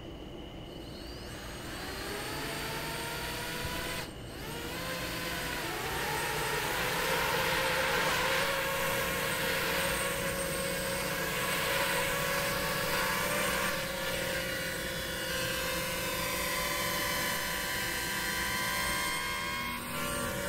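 Racing quadcopter's electric motors and propellers spinning up from rest with a rising whine, then a steady buzzing hover whose pitch wavers up and down as the throttle changes. About four seconds in the sound briefly drops before climbing again.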